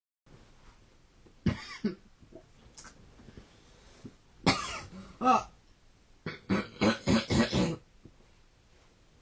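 A sleeping man coughing in short, harsh bursts: two small ones, two stronger ones about four and a half seconds in, then a quick run of about seven near the end. The coughing goes with the laboured breathing he says he had in deep sleep.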